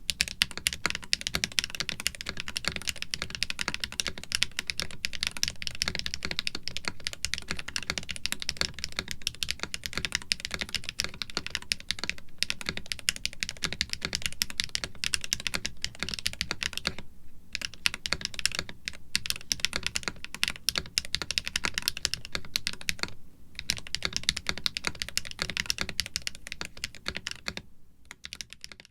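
Fast continuous typing on a mechanical keyboard: a MelGeek Made68 with a white ABS plastic case, aluminium plate, foams and case silicone, and hand-lubed Gateron White magnetic HE linear switches. A dense stream of key clicks with a few short pauses.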